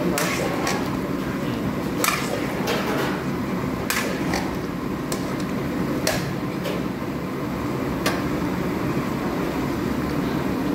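Spatula knocking and scraping against a large metal paella pan while stirring, with sharp knocks about every two seconds over a steady rushing background.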